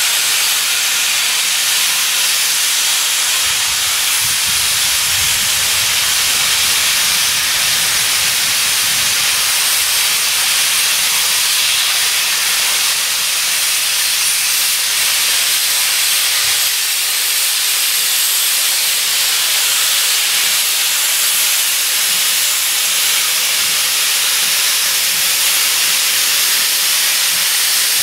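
Steam locomotives letting off steam: a loud, steady hiss, with a low rumble underneath between about four and ten seconds in.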